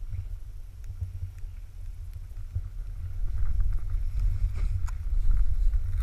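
Low rumbling wind buffeting a pole-mounted action camera, mixed with a snowboard sliding through powder snow; it grows louder about three seconds in.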